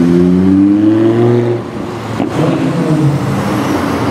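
Lamborghini Huracán Spyder's naturally aspirated V10 accelerating, its note rising for about a second and a half before the revs drop off. After a short break it carries on at lower revs.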